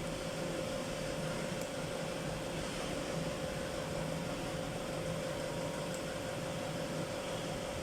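Steady machine hum: an even, fan-like rush with a constant mid-pitched tone running through it.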